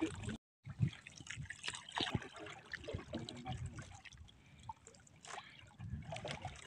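Faint, irregular trickling and dripping of water with small splashes as a wet fishing handline is hauled in hand over hand over the side of a small boat.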